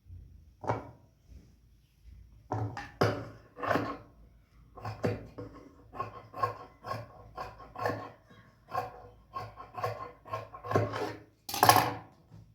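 Repeated short rubbing strokes, roughly two a second after a pause near the start, the loudest one near the end.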